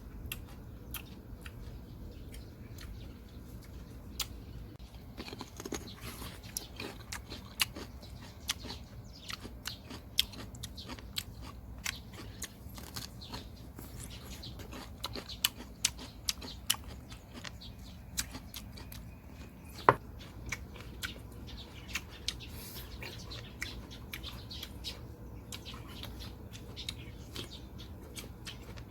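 Close-up chewing and biting of crisp bilimbi fruit: irregular sharp crunches and clicks over a low, steady hum.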